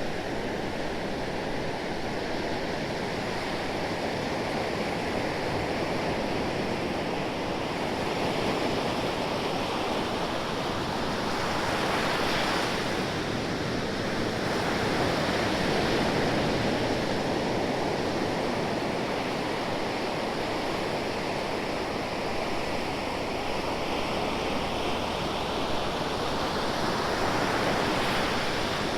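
Ocean waves washing ashore in a continuous surf, swelling and easing every few seconds, with a louder wave breaking about twelve seconds in.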